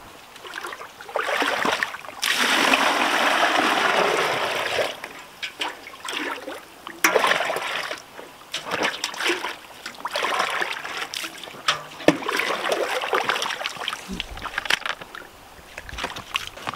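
Water splashing and pouring as buckets are filled at a spring-fed wooden trough and water is poured from a metal bucket into a plastic one. A steady pour of about three seconds comes about two seconds in, followed by shorter splashes and a few sharp knocks.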